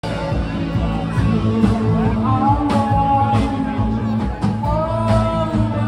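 Live rock band playing through amplifiers: electric guitars over a steady bass line, with regular drum strikes.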